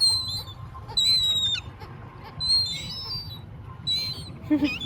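Shorebirds calling in short series of high, thin whistled notes, four bursts in all, over a steady low background hiss.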